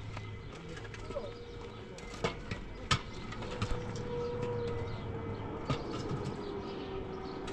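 A few sharp knocks, the two loudest about half a second apart, over a steady hum that slowly drops in pitch.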